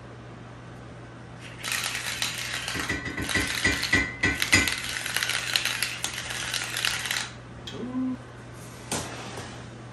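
A handheld salt and pepper mill grinding over raw fish fillets in one run of about five and a half seconds: a dry, crackly grinding with a faint steady whir. A short hum and a single click follow near the end.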